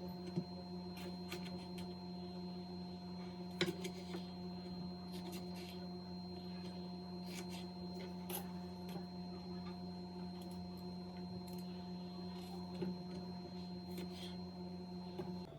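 A steady electrical hum with light clicks and taps scattered through it, the sharpest about half a second and three and a half seconds in.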